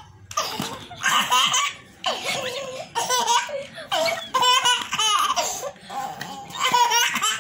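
Toddler laughing hard in repeated belly-laugh bouts, about seven short bursts, each breaking off and starting again a moment later.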